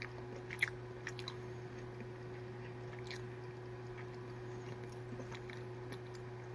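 A person chewing gummy fruit snacks close to the microphone, with scattered soft wet mouth clicks over a steady low hum.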